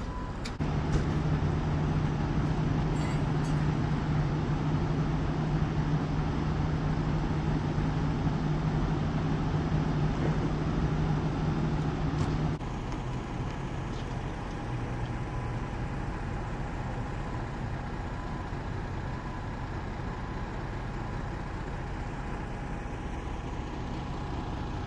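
Fire engine's diesel engine running with a steady low drone. About 12 seconds in, the sound cuts abruptly to a quieter, steady low engine hum.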